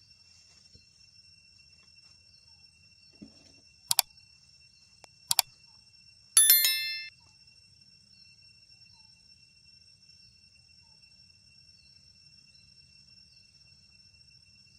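Two quick pairs of sharp clicks, then a loud bell-like ding that rings for under a second, over a steady high-pitched whine.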